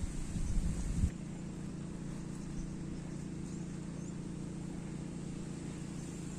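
A motor's steady low drone. A louder low rumble in the first second stops abruptly.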